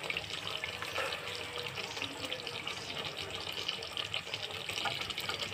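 Chicken curry simmering and sizzling in an aluminium pot on the stove: a steady hiss with many fine crackles.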